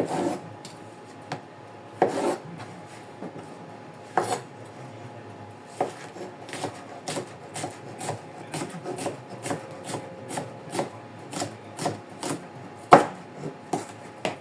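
Knife cutting a cucumber on a cutting board: a run of short, irregular strokes that come closer together in the second half, with one louder knock near the end.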